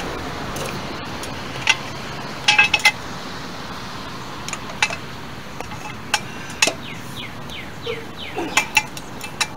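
Scattered sharp metal clinks of a steel socket and bar knocking against a car wheel's lug nuts as the socket is fitted. The clinks come singly and in a quick cluster of three or four.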